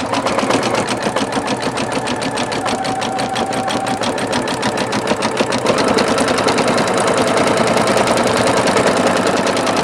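Singer Futura XL-550 embroidery machine stitching at speed, a steady rapid run of needle strokes that gets a little louder about six seconds in. There is no rattle or clanking from the bobbin area: the bobbin-case rattle has been cured.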